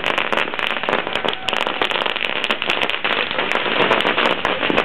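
A dense barrage of French bangers (small firecrackers) going off in rapid succession, many sharp bangs a second merging into continuous crackling.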